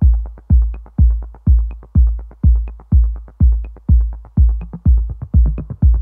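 Electronic dance music: a heavy kick drum beating about twice a second, with light ticking percussion between the beats and extra hits filling in near the end.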